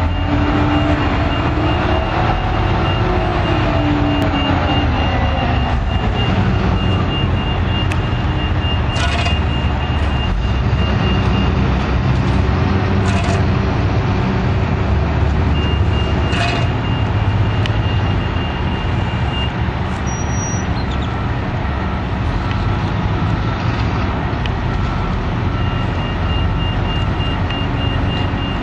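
Heavy diesel machinery rumbling steadily, with a backup alarm beeping in long stretches and a few sharp clicks. An engine rises and falls in pitch near the start, and a second, lower-pitched beeper joins near the end.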